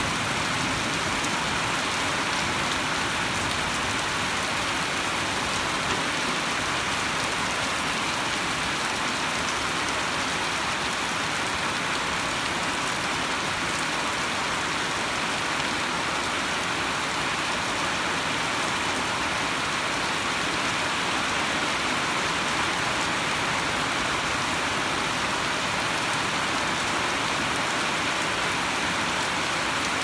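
Heavy rain falling steadily, an even hiss that holds at one level with no break.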